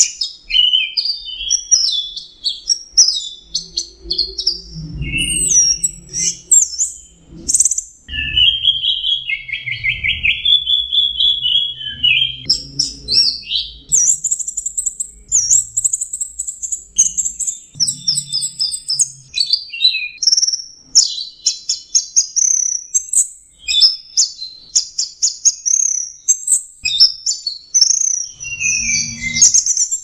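Orange-headed thrush (anis merah) singing non-stop: a long, varied song of quick whistled phrases, packed with mimicked calls of other birds.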